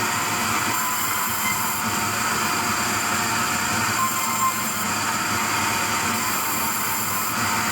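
Wood-cutting sawmill machinery running steadily with an even mechanical noise.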